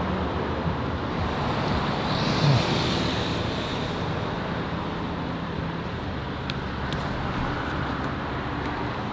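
Road traffic on a busy city street: a steady wash of passing cars, with one car going by louder about two and a half seconds in.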